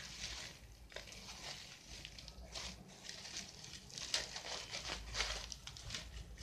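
Plastic bubble wrap crinkling and rustling in irregular bursts as hands handle it and unwrap it from a small device.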